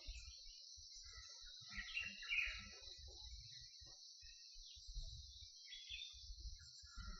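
Steady high-pitched insect chorus, with a bird calling in two short parts about two seconds in and again briefly near six seconds.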